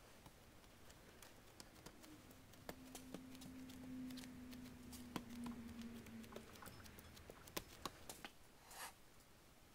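Near silence: faint scattered clicks, with a faint low hum for a few seconds in the middle.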